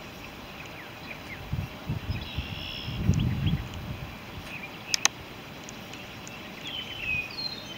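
Birds chirping in short calls over outdoor background noise, with low bumping or rustling between about one and a half and three and a half seconds in, and two sharp clicks about five seconds in.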